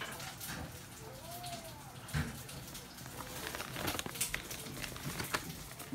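A pet rabbit at a ceramic hay bowl in its cage, making irregular small clicks, rustles and crunches in the hay, with a soft thump about two seconds in.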